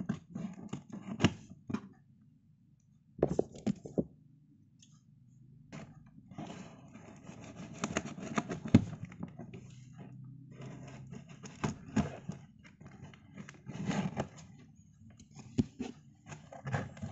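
A taped cardboard shipping box being opened by hand: packing tape pulled, cardboard flaps rustling and scraping, with sharp knocks. It comes in irregular bursts, a short one at the start and another about three seconds in, then near-continuous handling from about six seconds in.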